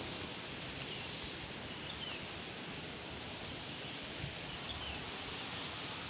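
Steady outdoor background hiss on a forested hillside, with a few faint short bird chirps.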